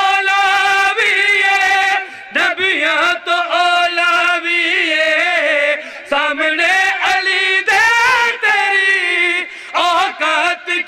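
A man singing a Punjabi devotional qasida in long, wavering held notes, his phrases breaking off every second or two.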